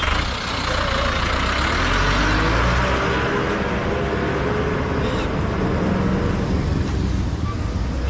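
Road traffic: a motor vehicle's engine and tyre noise swells and fades as it passes close by, over a steady low rumble.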